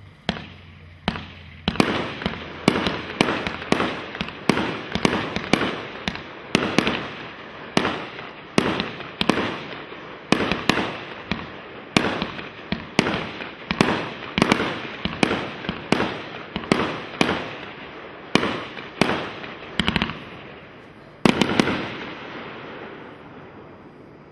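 Red Rhino Warlord 500-gram firework cake firing a steady string of sharp bangs, about two a second, each trailing off briefly. Near the end a quick cluster of bangs comes as the finale, then the sound fades away.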